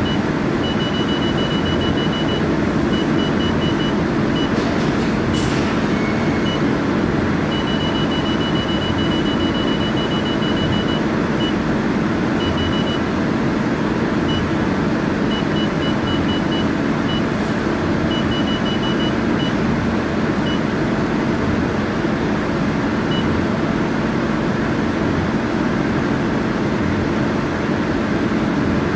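Laser machine running with a steady whirring hum, while its touchscreen control panel gives short high beeps, singly and in quick runs, as the parameter arrows are tapped.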